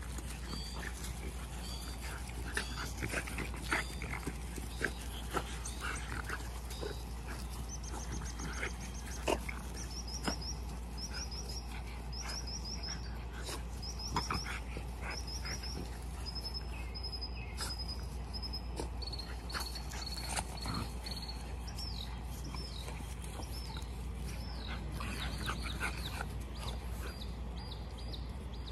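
French bulldog puppies at play, giving a dozen or so short, sharp puppy vocalizations scattered through. A bird trills repeatedly in the middle stretch.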